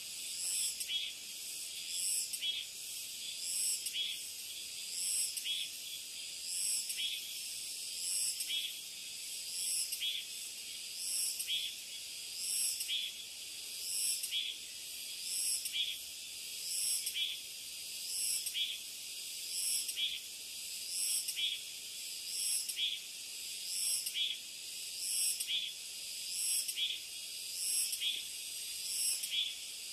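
Summer insect chorus: a steady high-pitched shrill, with one call swelling and fading evenly about every one and a half seconds.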